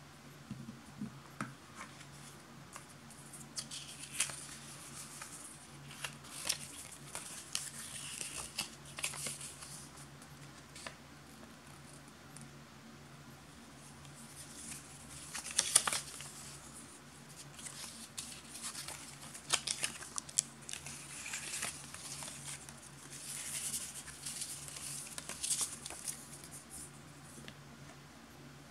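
Hands handling a paper instruction leaflet and light cardboard-and-plastic packaging: scattered bursts of paper rustling and crinkling with small clicks and taps, the loudest about sixteen seconds in. A faint steady low hum runs underneath.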